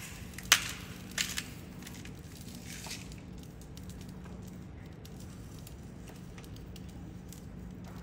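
A black pepper grinder twisted a few times, short crunching grinds in the first second and a half, then an egg cooking in a mini waffle maker with faint crackling.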